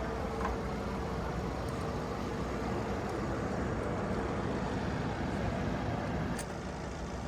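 Steady low engine rumble with a constant hum, the sound of a motor vehicle or aircraft engine running at idle; it eases slightly and there is a faint click about six and a half seconds in.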